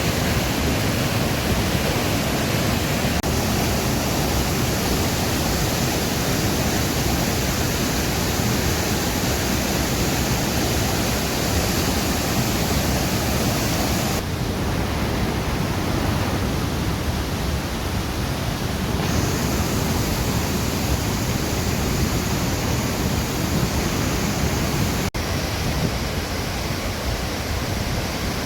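Reichenbach Falls: steady rushing roar of a large waterfall. The sound briefly drops out near the end.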